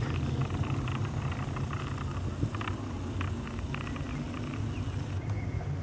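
Steady low rumble of a jet aircraft passing overhead, with faint short high ticks scattered over it.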